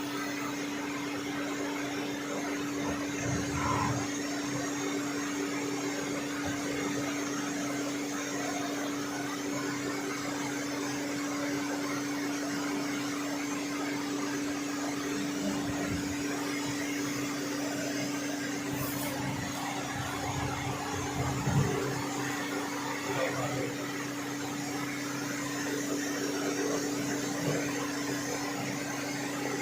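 CNC lathe running with a steady machine hum carrying one constant tone, with a few soft knocks along the way.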